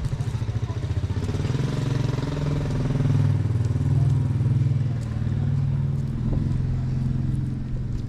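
A small motorcycle-type engine running close by, with a steady low pulsing note that swells in the middle and eases off near the end.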